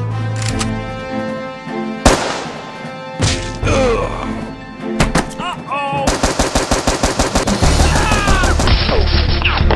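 Dubbed-in gunfire sound effect: a single loud shot about two seconds in, then a rapid automatic burst of about seven shots a second from about six seconds in, over background music.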